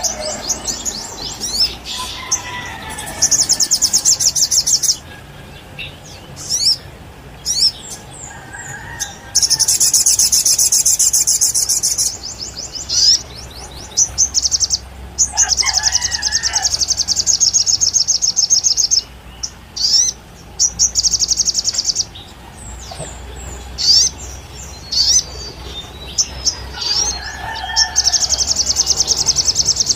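Sogon songbird singing continuously. Its song is long, rapid, high trills of a few seconds each, the longest about a third of the way in and again just past halfway, broken up by short sharp chirps and a few lower warbled phrases.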